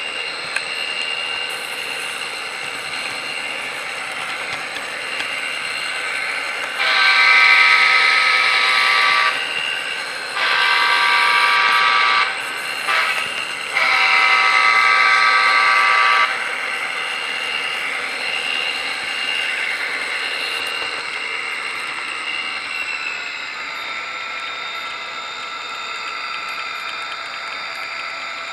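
HO-scale model train's horn sounding the grade-crossing pattern: two long blasts, a short one and a final long one, over the train's steady mechanical running hum.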